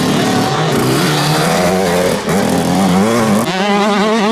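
Small youth motocross bikes running hard on a track, several engines overlapping. From about three and a half seconds one bike is close and loud, its engine pitch climbing and dropping as it revs.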